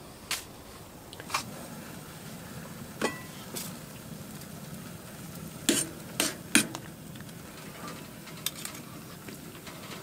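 Scattered clinks and knocks of metal camp cookware: a pot lid and a spoon against a cooking pot, with a few sharp ones close together about six seconds in, over a steady faint hiss.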